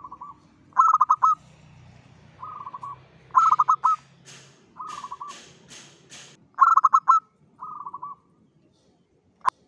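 Zebra dove (perkutut) cooing in short, rapid, stuttering phrases, about seven of them, some softer and some louder. A few brief scratchy noises come about halfway through, and a sharp click near the end.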